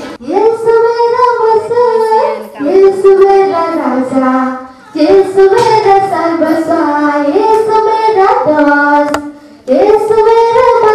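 Children singing a song, holding long notes that step up and down from phrase to phrase, with brief breaks between phrases.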